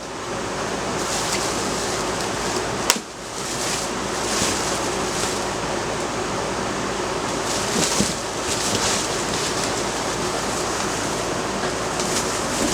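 Steady rushing noise of an air conditioner's outdoor unit running with its fan on. A single sharp click comes about three seconds in, with a few light rustles of handling.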